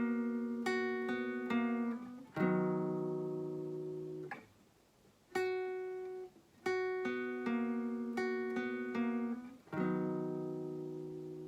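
Guitar picking a short melody line: a few quick single notes, then a chord left to ring, with the phrase played twice. The last chord rings on and slowly fades.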